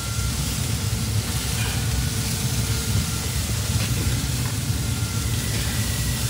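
Steady hiss of pork butts sizzling on an open smoker grate, under a choppy low rumble of wind on the microphone.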